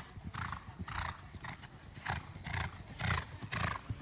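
Show-jumping horse cantering on a sand arena: hoofbeats and breaths at a steady stride rhythm of about two a second.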